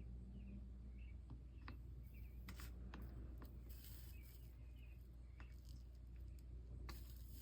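Faint small-bird chirping, short high chirps repeating every half second or so, over a low steady hum. A few light clicks and several brief hissing sounds come in, the longest near the end.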